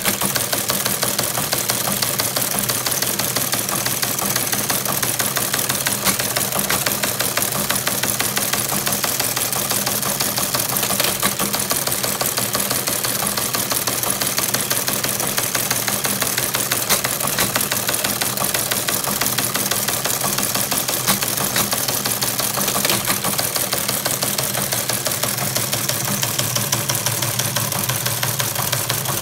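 Teletype Model 15 typebar teleprinter printing incoming text, a steady rapid clatter of typebars striking the paper over the constant hum of its motor.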